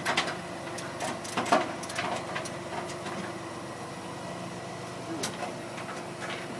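A car engine idling steadily, with scattered clicks and knocks over it, a cluster in the first two seconds and another about five seconds in.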